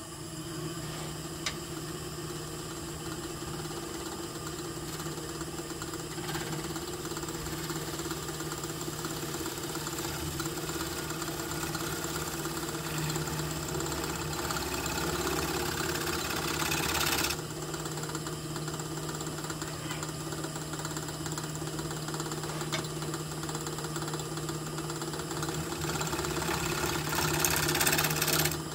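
Wood lathe running steadily with a cherry-burl blank spinning on it, its motor humming, while a gouge cuts the wood with a scraping hiss. The hiss builds, stops suddenly a little past halfway, and comes back louder near the end.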